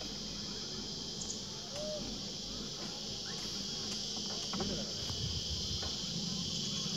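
A steady, high-pitched chorus of insects from the scrubby hillside, unbroken throughout, over a low rumble that grows a little louder after about five seconds.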